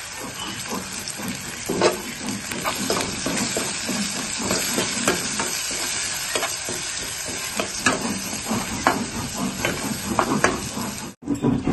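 Vegetables sizzling in hot oil in a non-stick kadai, with a spatula stirring and scraping the pan in frequent clicks and scrapes. The sound cuts off abruptly near the end.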